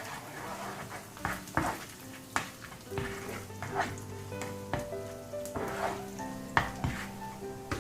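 Food sizzling in hot oil in a pan, stirred with a spatula that scrapes and taps against the pan every half second to a second, over background music.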